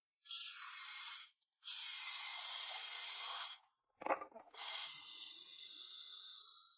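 Welding hiss, steady and high-pitched, coming in three long spells with short breaks between them, with a brief crackle about four seconds in.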